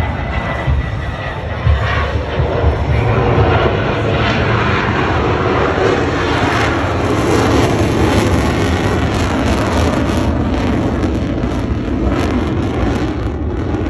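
Airplane engine noise from an aircraft flying past, growing louder to a peak about halfway through and then easing off.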